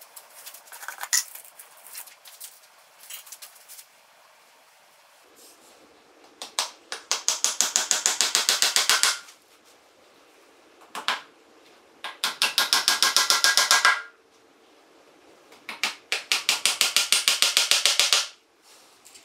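A small hammer tapping rapidly on a wooden core box. There are three quick runs of light blows, about ten a second, each lasting about two seconds. Before them come a few scattered knocks as wooden pieces are handled on the bench.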